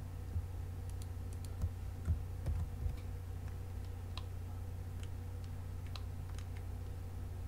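Scattered computer keyboard clicks, single irregular key presses such as a shortcut being typed, over a steady low hum.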